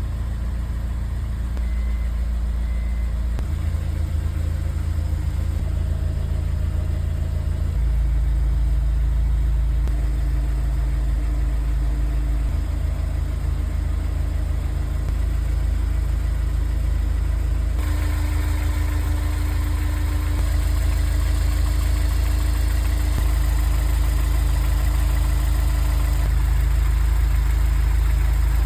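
Honda S2000 running, a steady low rumble that shifts in steps every few seconds, with a faint steady hum above it.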